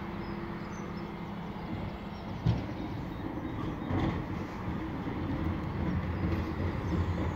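Refuse lorry's diesel engine running, a steady low hum at first that turns to a rougher rumble growing louder toward the end, with a single knock about two and a half seconds in.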